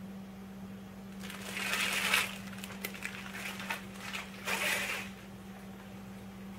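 Plastic wrapping crinkling as a bagged plush pillow is handled and lifted away. The crinkling comes in two spells about two seconds apart, with a few small clicks between.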